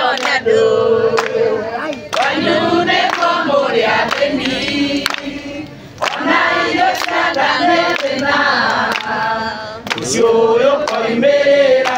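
A group of people singing a song together, with hand-clapping in time.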